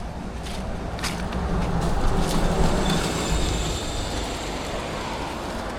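A motor vehicle passing by: a rumbling road noise that swells to a peak two to three seconds in and then fades. Faint footsteps on dry leaves sound now and then.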